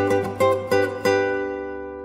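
Music of plucked guitar notes, ending about a second in on a chord that rings on and slowly fades.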